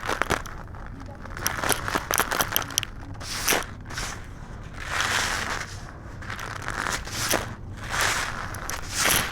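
Brittle black-dyed concrete crumbling and being crushed, with a run of sharp crackles and snaps and a few longer crunching grinds.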